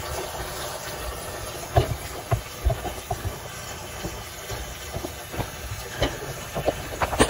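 Water running from a garden hose into a metal barrel, a steady hiss and splash as the barrel fills, with a few light knocks.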